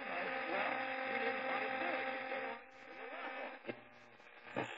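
Clock radio playing loud through its upgraded 5-inch speaker, a voice or music over a steady electrical hum. It drops off sharply about two and a half seconds in, and a couple of sharp clicks follow as its buttons are pressed.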